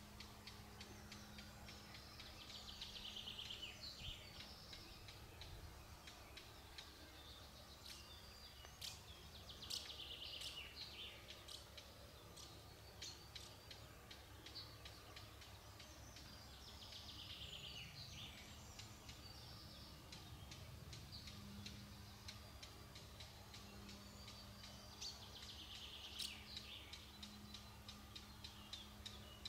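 Faint outdoor ambience: a songbird sings a short, falling trilled phrase four times, about every eight seconds, over a scatter of light ticks and a faint steady low hum.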